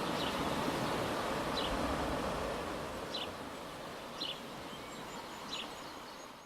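Waves washing on the shore with a steady rush, under a bird giving short high chirps about every second and a half. The whole sound fades out near the end.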